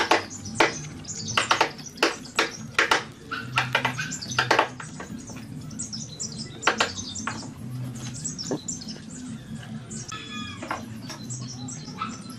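A run of sharp clicks and taps of hand work at a bench, over a steady low hum, with a short pitched chirp near the end.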